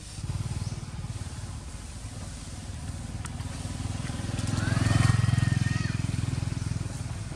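A motor vehicle passing by, its engine drone growing louder to a peak about five seconds in, then fading.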